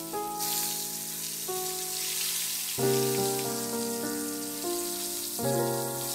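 Salted tempe frying in hot oil in an aluminium wok, a steady sizzle, under background music of held notes that change every half second or so.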